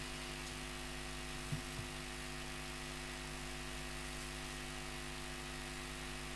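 Steady electrical mains hum made of several even tones over faint hiss, with two soft low thumps about a second and a half in.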